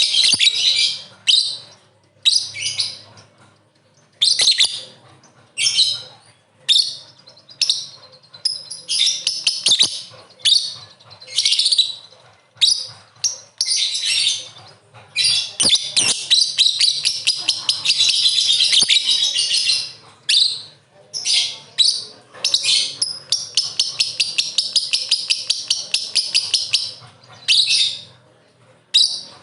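Lovebird chattering in a string of short, shrill bursts of rapid notes, breaking twice into long unbroken chatter (the 'ngekek'), once about halfway in and again in the last third.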